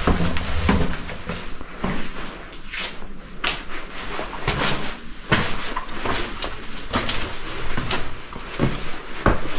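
Footsteps on stone steps and floor in a narrow stone passage: a walker's even knocks, roughly one every half to one second, over a low handling rumble.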